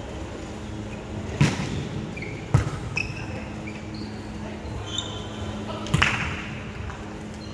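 Volleyball being struck during a rally: three sharp smacks, about a second and a half in, about two and a half seconds in, and about six seconds in, the last two loudest, each echoing in the big hall.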